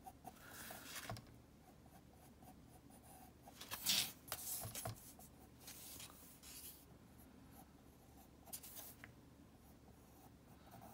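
Pencil strokes scratching on paper while a small circle is drawn freehand: a series of short, faint strokes, the loudest about four seconds in.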